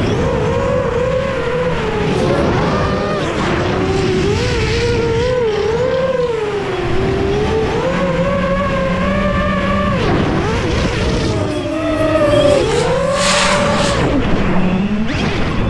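Catalyst Machineworks Cannonball X-class racing quadcopter in flight: its electric motors and propellers whine, the pitch swinging up and down with each change of throttle, over a steady rushing noise.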